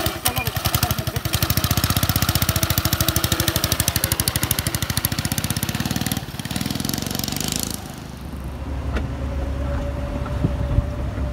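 A pit bike's small single-cylinder engine running loud with a fast, even firing rhythm. About eight seconds in it gives way suddenly to a quieter, lower, steady engine hum.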